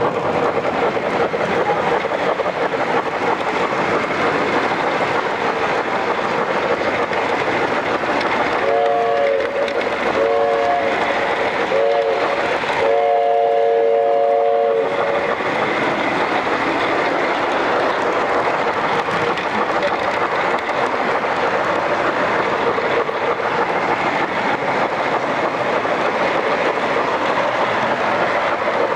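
Model train running on the club layout with steady running noise; about nine seconds in, its locomotive sound horn blows a chord in the grade-crossing pattern: two long blasts, a short one and a final long one.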